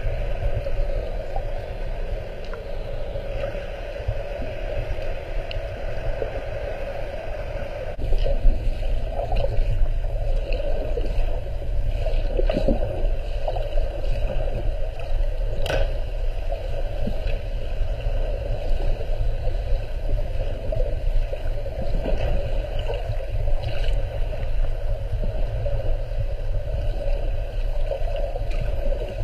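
Muffled underwater noise through a GoPro's waterproof housing: a steady low rumble of moving water with a few faint clicks, getting louder about eight seconds in.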